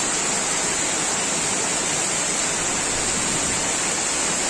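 Torrential rain pouring down, a steady, even hiss with no break.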